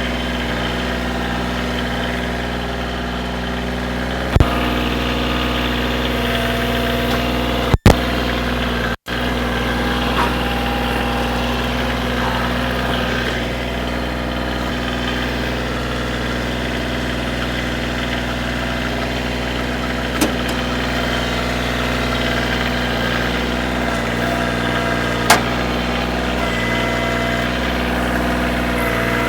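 Kioti DS3510 compact tractor's diesel engine running at a steady speed, with a few sharp knocks over it.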